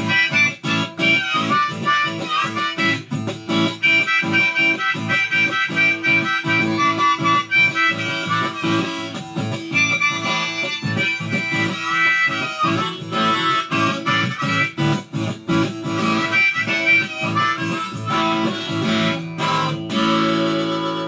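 Acoustic guitar strummed steadily while a harmonica in a neck rack plays held and bending notes over it, an instrumental passage. Near the end the strumming stops and a chord is left ringing.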